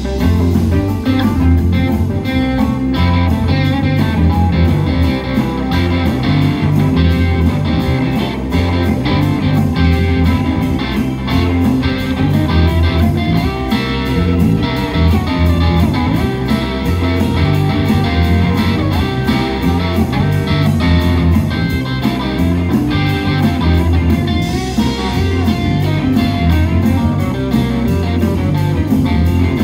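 Live rock band playing: electric guitars over bass guitar and drums, with a steady beat.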